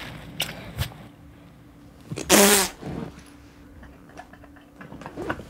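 Wet lip smacks of a kiss in the first second, then about two seconds in a short, loud, noisy blast with a voice-like tone in it.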